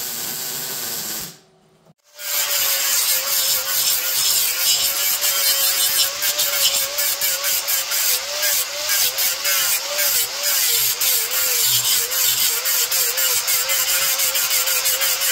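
A welding arc hisses on the truck's steel frame rail for about a second, then cuts off. After a short gap, an electric angle grinder with a flap disc grinds down the frame welds, a loud whine whose pitch dips and wobbles as the disc is pressed into the steel.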